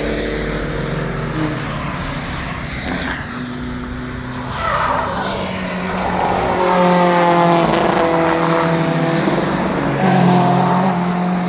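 Several track cars' engines running on the circuit. One revs up about 5 seconds in, and the engines grow louder in the second half.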